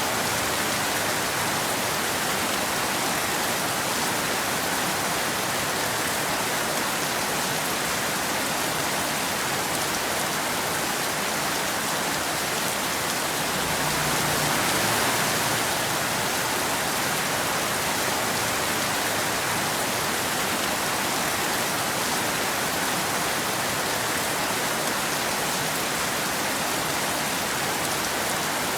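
Steady rain falling in a dense, even hiss, with a slight swell about halfway through.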